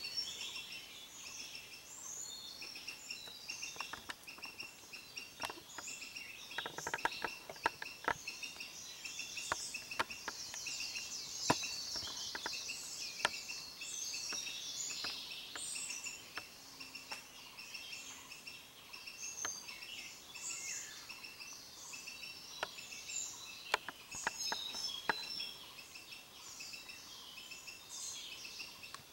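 Many wild birds chirping and trilling in the forest canopy, with a steady, rapidly repeated high note running underneath and scattered faint clicks.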